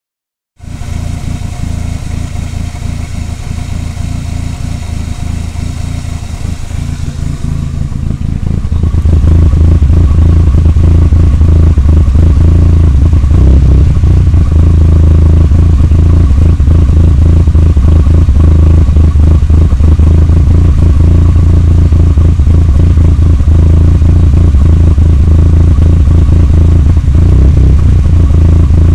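Conquest's engine idling roughly, with an uneven, stumbling beat. It gets much louder about eight seconds in.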